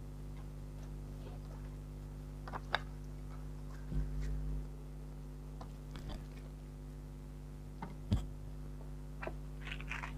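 Light handling noises: a few scattered taps and clicks, a soft thump about four seconds in, a sharper knock about eight seconds in, and a brief rustle near the end, over a steady electrical hum.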